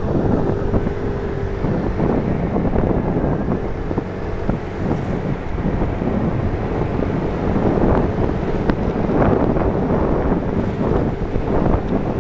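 Wind rushing over the microphone of a moving Yamaha Tricity three-wheeled scooter, with the scooter's engine running steadily beneath it as a faint, even hum.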